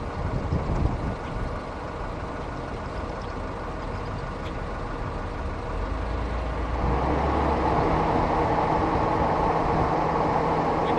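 A motor vehicle running, with an uneven low rumble at first. About seven seconds in, a louder, steady rushing noise with a low hum sets in.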